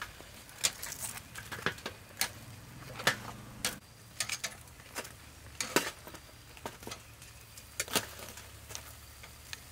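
Metal tongs clicking and clattering against a grill grate and a stainless steel tray as grilled fish are lifted and set down: irregular sharp clicks, one or two a second.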